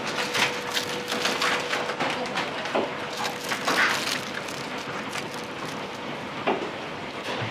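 Clatter of cookware and utensils in a commercial kitchen: quick sharp clicks, knocks and scrapes, busiest in the first four seconds and sparser after, over a faint steady hum.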